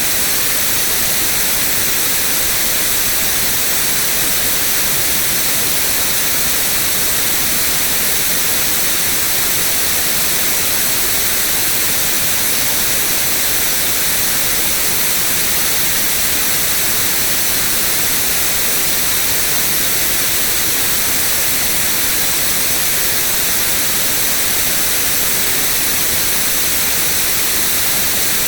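Steady white noise: a constant, even hiss, loudest in the high frequencies, with no change.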